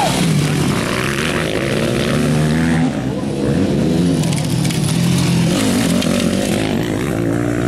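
Motocross bikes' engines running at high revs as they pass close by, the pitch climbing and dropping again and again as the riders work the throttle and shift.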